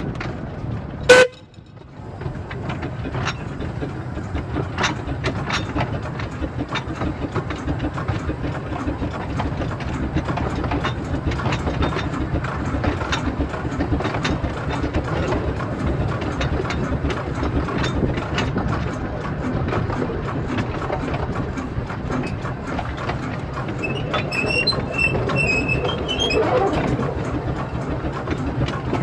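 Bagnall narrow-gauge steam locomotive running along the line, heard from its footplate: a steady running noise with scattered clicks. A brief, sharp, loud sound comes about a second in, and a high, broken pitched sound like a whistle comes near the end.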